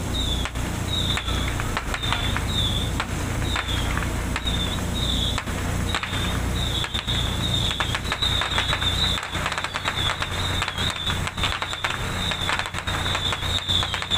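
Ship and tugboat diesel engines running with a steady low hum, with scattered sharp cracks and pops throughout and short high chirps repeating about once or twice a second.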